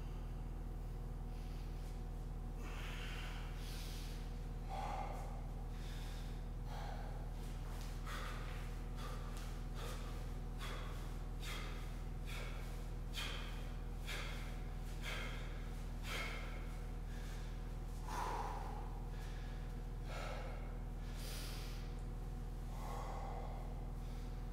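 A man breathing hard from exertion, with a run of quick, sharp exhales about one every 0.7 s through the middle and slower, heavier breaths before and after. A steady low hum runs underneath.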